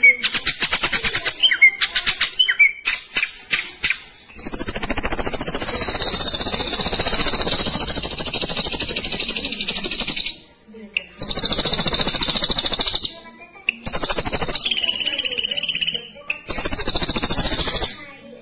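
Ashy drongo singing: a fast run of clicking notes, then four long, harsh buzzing phrases with short breaks between them.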